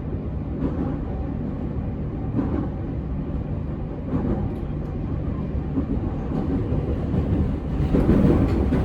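Running noise inside the motor car of an unrenewed JR E231 series 1000 electric train: a steady low hum under wheel and track noise. Near the end it grows louder, with the wheels clattering over rail joints.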